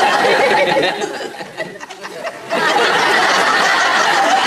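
Sitcom studio audience laughing: a loud wave of crowd laughter that dips about two seconds in and swells up again.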